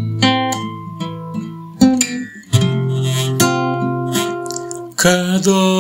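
Classical guitar strummed slowly, each chord left to ring before the next strum; a man's singing voice comes in near the end.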